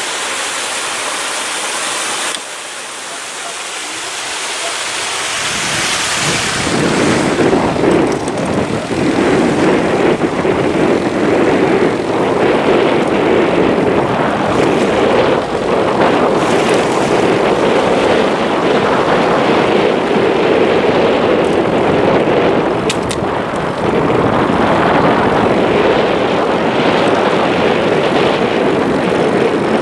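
Wind buffeting a camcorder's built-in microphone, a loud gusting rumble that builds over the first few seconds and then runs on. It opens with a short steady hiss that cuts off about two seconds in.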